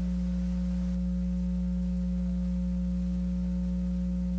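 Steady low electrical hum, with a few fainter steady tones above it and no other sound.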